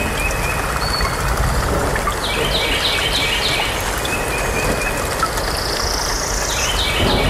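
Steady low outdoor rumble with birds chirping over it: short series of quick repeated chirps about two seconds in and again near the end.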